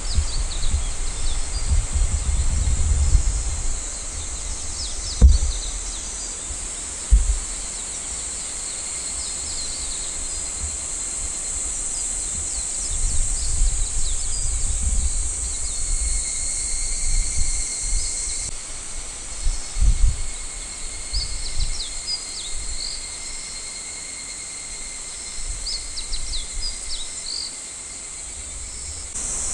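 Outdoor ambience: a steady high-pitched chorus of insects, with birds chirping on and off. Low rumbles come and go on the microphone, with two short low thumps a few seconds in.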